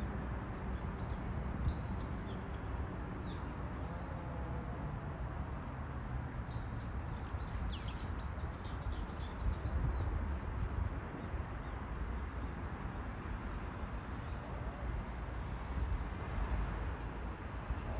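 Steady low outdoor rumble with small birds chirping now and then, including a quick run of short high notes about nine seconds in.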